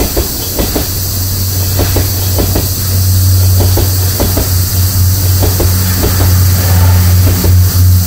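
Train of passenger coaches hauled by a steam locomotive rolling past at a level crossing: wheels clack over the rail joints at uneven intervals over a heavy steady rumble, which grows louder about three seconds in. Cicadas drone steadily in the background.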